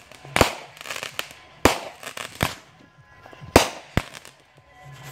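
Aerial fireworks bursting overhead: five sharp bangs in about four seconds, several followed by a crackling hiss of sparks.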